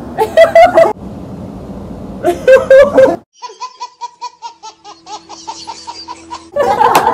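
Two loud bursts of laughter, then a baby giggling in quick short bursts, about four a second, then loud laughter again near the end.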